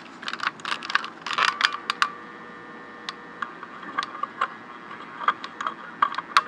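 Soldering paste crackling and popping as it boils under a hot soldering gun tip pressed into the solder port of a PL-259 connector: irregular sharp clicks, in quick clusters for the first two seconds, then sparser single pops.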